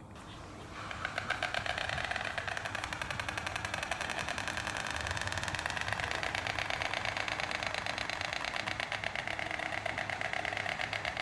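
White stork clattering its bill: a long, fast, even rattle that starts about a second in.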